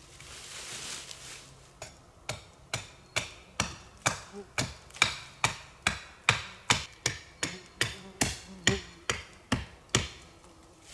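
Hatchet chopping into a thin standing sapling: a steady run of about twenty sharp wooden chops, roughly two and a half a second, starting about two seconds in and stopping shortly before the end. Before the chopping, footsteps rustle in dry leaf litter.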